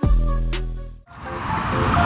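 A deep musical bass hit that fades away over about a second and cuts off. Then a steady hiss of background noise, with short, faint repeated tones in it.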